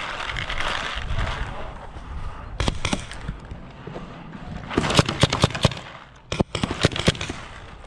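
Paintball markers firing in three rapid bursts of sharp pops, about 2.5, 5 and 6.5 seconds in.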